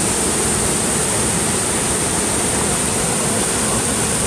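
Floodwater gushing out of concrete culvert pipes under a broken road crossing: a steady, loud rush of turbulent water.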